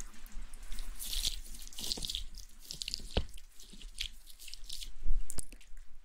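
Close-miked ASMR trigger sounds: a stream of soft, wet clicks and crackles with a few sharper drip-like pops.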